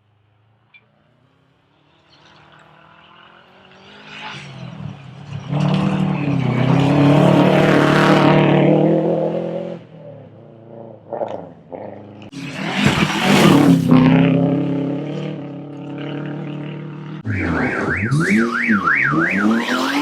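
Rally car engine at full throttle rising out of near silence about two seconds in, revving hard and dropping through gear changes as it approaches and passes. Near the end the revs swing up and down while the tyres squeal with a wavering pitch as the car slides.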